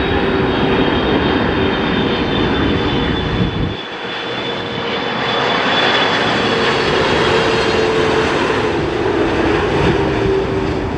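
Jet airliner's engines running loudly close by, a dense rush with a steady high whine. The low rumble under it drops away about four seconds in.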